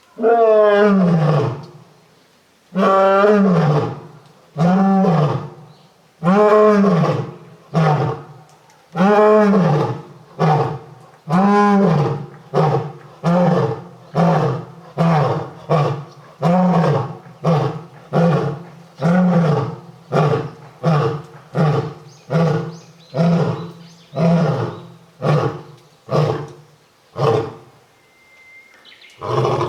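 A lion roaring, low and loud. A few long, full roars come first, then a run of shorter grunting roars about a second apart that get shorter and quieter as the bout winds down.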